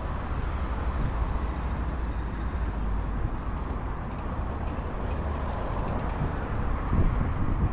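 Steady road traffic noise from passing vehicles, with a deep low rumble.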